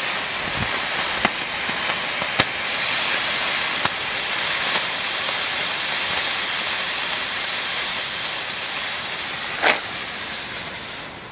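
Coloured smoke ball firework burning with a steady hiss and a few sharp ticks, the hiss dying down near the end as it burns out.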